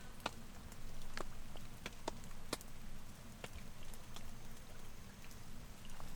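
Rain: single raindrops landing in sharp, irregular taps every second or so, over a low steady background noise.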